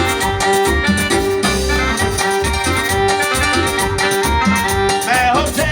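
Instrumental band music: a keyboard melody of held notes over bass and a steady beat, with a voice coming in near the end.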